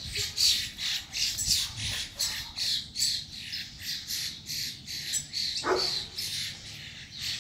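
Birds squawking in quick, harsh calls, two or three a second, during a fight between two birds.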